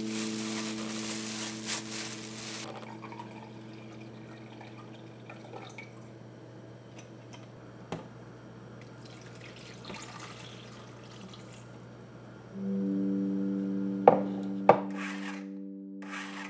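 Apple cider vinegar poured from a measuring cup into a plastic food processor bowl over chopped habanero peppers, followed near the end by two sharp clicks as the lid is locked on. Soft background music with held chords plays underneath.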